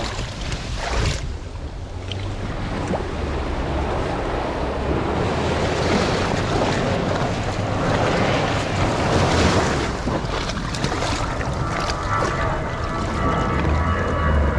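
Small waves washing over a pebble shore and swirling around an inflatable dinghy as it is pushed through the shallows, with wind rumbling on the microphone.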